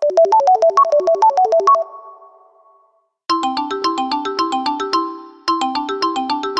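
Samsung Galaxy S5 stock ringtones: a fast run of short, bell-like electronic notes plays and rings away. About three seconds in, a different ringtone starts, its short melodic phrase played twice.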